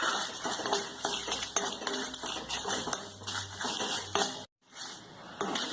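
A spoon stirring and scraping dried red chillies and curry leaves as they roast in a pan, with many small clicks and scrapes. The sound breaks off for a moment about four and a half seconds in.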